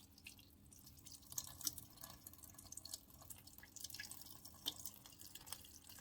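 Water dripping and trickling into the bottom of a pressure cooker's pot, faint, in a scatter of small irregular drips.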